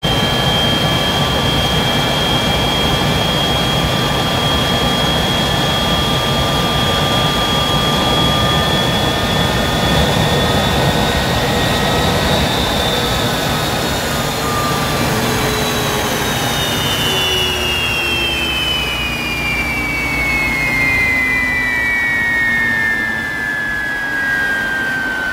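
Westinghouse J34 axial-flow turbojet running: a loud steady rush with a high turbine whine. The whine holds and edges slightly up, then falls steadily in pitch through the second half as the engine spools down.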